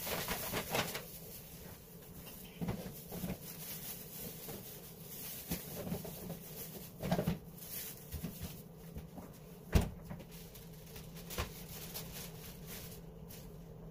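Kitchen refrigerator and cupboard doors being handled: scattered soft knocks and rustling, with one sharp knock about ten seconds in, over a low steady hum.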